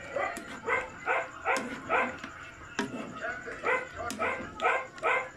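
A dog barking over and over, about two short barks a second, with a brief pause about halfway through.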